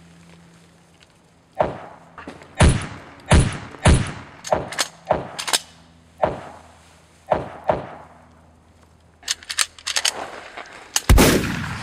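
Gunshots: about a dozen sharp shots at irregular intervals, each with a short echo, a quick cluster near the end, then a final loudest blast that rings on.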